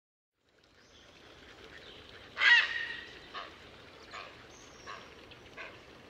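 A bird calling: one loud call about two seconds in, followed by four shorter, fainter calls spaced under a second apart, over a faint outdoor background.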